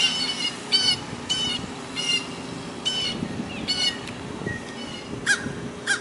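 Crows cawing over and over, short harsh calls coming a little more than once a second, with two sharper calls near the end: crows mobbing a great horned owl to drive it off.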